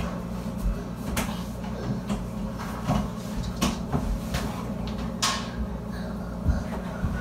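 A handful of sharp knocks and clicks from kitchen cabinet doors and things being handled on the counter, spread out over a few seconds, over a low steady hum.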